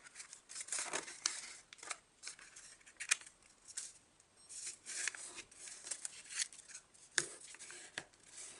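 A sheet of origami paper being handled, folded and creased by hand: rustling and sliding paper, with several sharp crisp crackles as the folds are pressed flat, the loudest about three seconds in and about seven seconds in.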